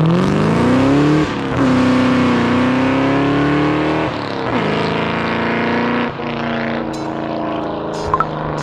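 A car engine accelerating hard through the gears: its pitch climbs, then drops sharply at each upshift, about one, four and six seconds in, and after the last shift it runs steadily.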